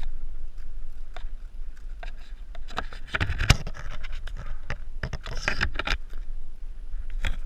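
Leaves rustling and twigs crackling as hands grab and pull at tree branches, with one sharp snap about three and a half seconds in.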